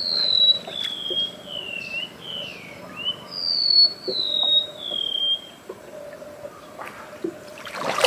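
A bird singing a run of clear, falling whistled notes, one after another for about five seconds, then stopping. A short splash of water near the end.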